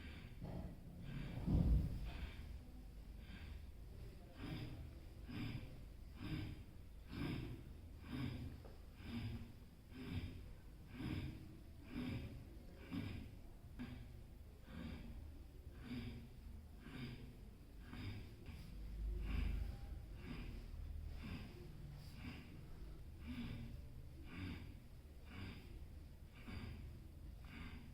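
Forceful rhythmic breaths through the nose, about one a second, as in a yogic pranayama breathing exercise, with one louder breath about two seconds in.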